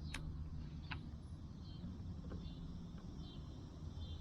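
Outdoor ambience: a low steady rumble, with faint short high chirps repeating about once a second and two sharp clicks, one at the start and one about a second in.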